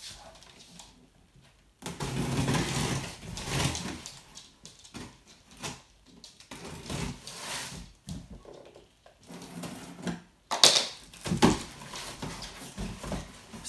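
A cardboard box being opened: a scissor blade scrapes and slits along the packing tape, and the cardboard rustles and scrapes as it is handled. A couple of sharp cardboard knocks come about three-quarters of the way through.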